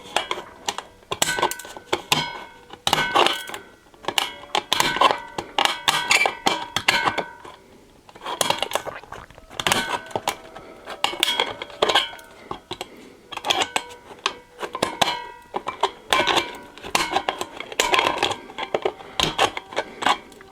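Hand cutting tool nipping at a thin stainless steel utensil bin: a long run of sharp metallic snaps and clicks, the bin ringing briefly after each one.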